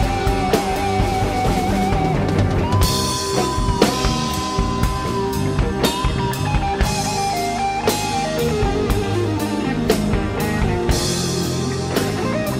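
Live rock band playing a slow instrumental blues-rock ballad: an electric guitar carries the melody in long held notes that bend and slide, over drum kit with cymbal strikes and bass guitar.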